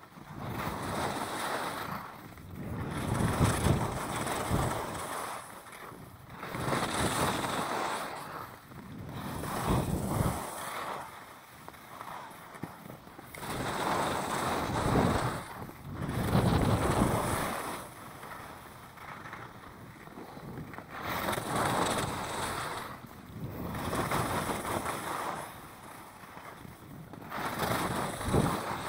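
Skis carving and scraping across packed snow in linked turns, the hiss swelling with each turn about every two to three seconds, with wind rushing over the microphone.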